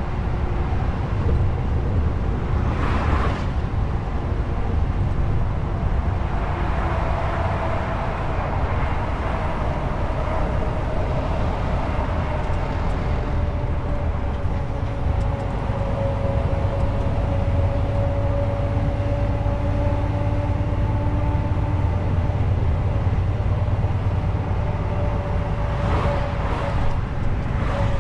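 Truck engine and tyres running steadily on the road: a low rumble with a whine that slowly drifts in pitch. Brief hisses come about three seconds in and twice near the end.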